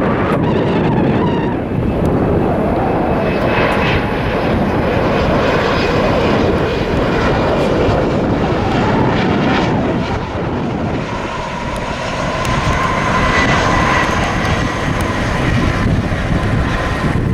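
Jet airliner engines running loudly as an aircraft passes, with a steady high whine that comes through more clearly in the second half. Wind buffets the microphone.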